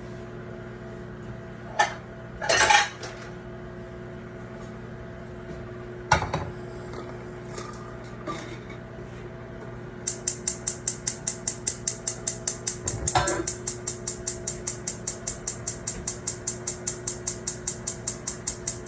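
Kitchen utensils and dishes clattering: a few sharp knocks and a short rattle in the first seconds. About ten seconds in, a steady rapid ticking starts, about four to five clicks a second, and keeps going.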